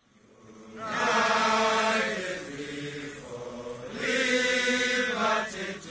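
A company of Ugandan soldiers singing together in chorus, a chant-like song in long held notes. It starts about a second in and swells again near the end.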